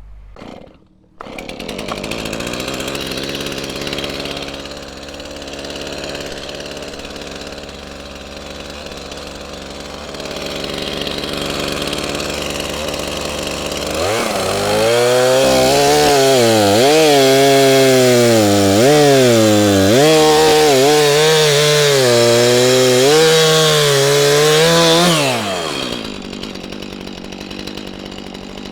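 Chainsaw running at low speed, then revved to full throttle for about ten seconds while cutting through a pine trunk, its pitch dipping and recovering as the chain bites into the wood, before dropping back to idle.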